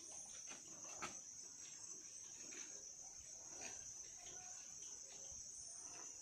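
A faint, steady, high-pitched chorus of insects in tropical forest, one unbroken shrill tone, with a few faint ticks.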